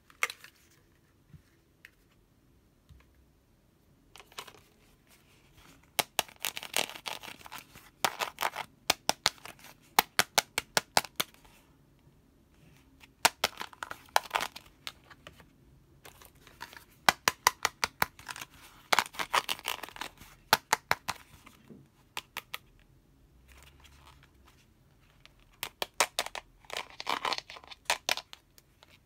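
Fingernails tapping and scratching on hard pink plastic toys (toy shoes and crown-shaped toy purses), in bursts of quick clicks with short pauses between them.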